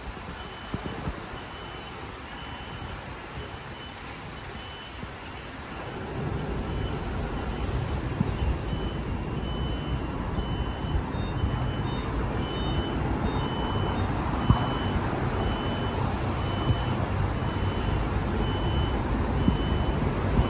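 High electronic reversing-alarm beeps repeating a little over once a second over street noise. About six seconds in, the low rumble of a moving vehicle grows louder and carries on under the beeps.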